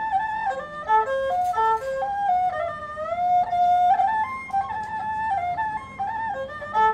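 Tro Khmer, a Cambodian three-string spike fiddle, bowed solo in a traditional melody that steps between held notes with short slides in pitch.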